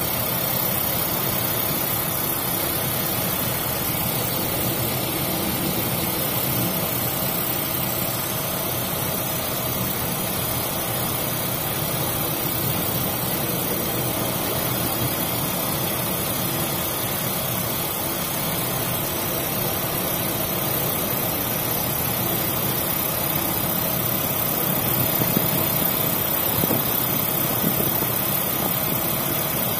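Steady drone of a ship's engine under an even rushing noise, growing slightly louder near the end.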